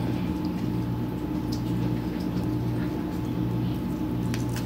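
A steady low hum throughout, with a few short crisp clicks near the end as teeth bite into the casing of a garlic smoked sausage link.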